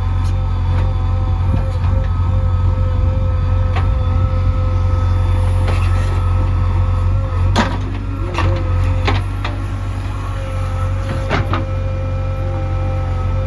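Heavy machine's engine running steadily under a constant low rumble, with a few sharp knocks in the second half.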